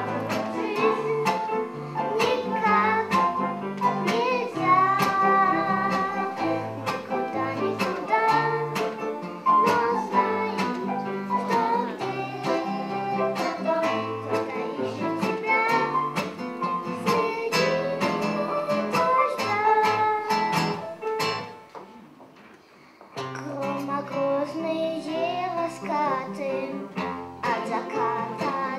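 A girl singing a song into a microphone over instrumental accompaniment with a steady beat. The music drops away briefly about three-quarters of the way through, then picks up again.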